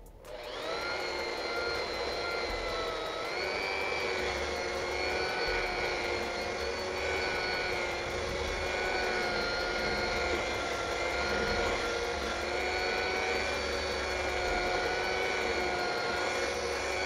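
Corded electric drill fitted with a sanding disc, spinning up and then running steadily as it sands a wooden plank: a steady motor whine whose pitch rises slightly about three seconds in.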